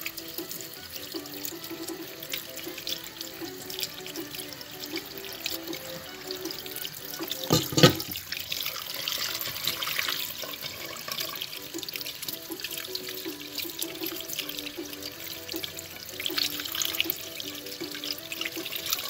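Tap water running into a stainless steel sink over meat in a plastic bowl while gloved hands rub and turn the pieces, with a single sharp knock about eight seconds in. Background music with a simple repeating melody plays underneath.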